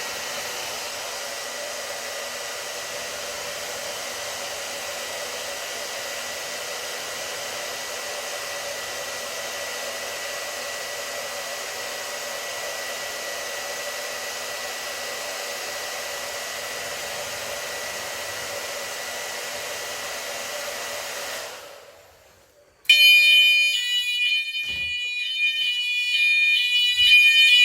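A hair dryer blows steadily on a heat detector to trip it, then switches off about 21 seconds in. About a second later a fire alarm horn strobe starts sounding, loud, in a rapid pulsing pattern: the heat detector has gone into alarm.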